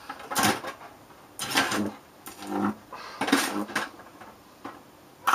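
High-voltage arcing at a neon test screwdriver pressed against a live metal plate: about five short, separate bursts of crackling buzz as the arc strikes and breaks.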